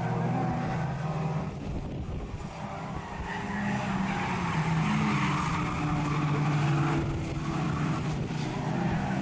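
Engines of several small race cars running hard around a tarmac oval, the engine note rising and falling as they pass, with tyres skidding.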